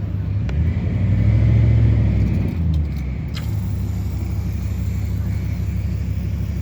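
A motor engine running steadily with a low hum, swelling louder for about two seconds near the start, with a few light clicks over it.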